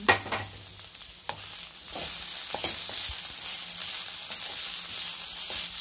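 Chicken, capsicum and onion sizzling in a pan over a low gas flame, with a few knocks of a utensil against the pan in the first three seconds. About two seconds in, the sizzle grows louder and stays steady.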